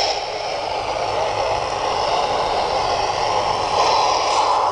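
Steady FM receiver hiss from a Yaesu VX-5R handheld radio's speaker, tuned to the AO-51 satellite downlink with the squelch open. A station calling in the noise is too weak to be copied.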